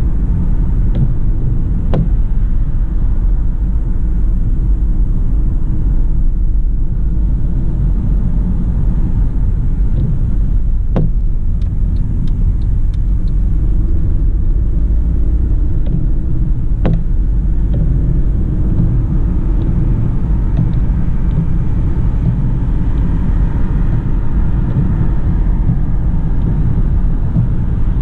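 Steady low rumble of engine and road noise inside the cabin of a 2011 Mercedes-Benz C180 CGI (W204), with its 1.8 turbocharged petrol engine, driving on a wet road. Three sharp clicks stand out, spaced through it.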